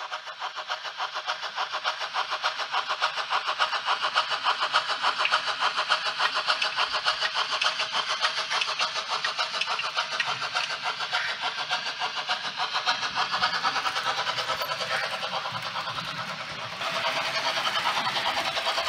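Model steam locomotive of the Danish DSB Litra N class chuffing in a quick, even rhythm as it pulls away with a coach. The chuffs build up at the start and turn louder near the end.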